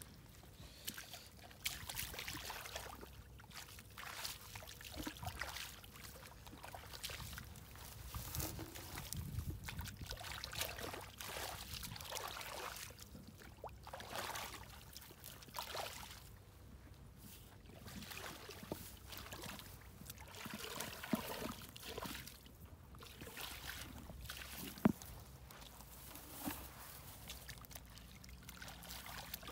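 Hands sloshing and scooping through shallow muddy water, with irregular splashes and trickles. There is one sharp click a little before the end.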